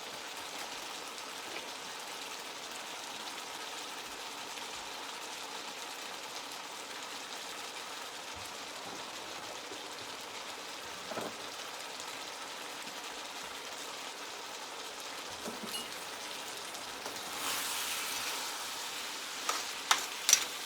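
Chicken strips, sliced peppers and onions sizzling steadily in oil in a frying pan. About 17 seconds in the sizzle grows louder, and a few sharp clicks come near the end.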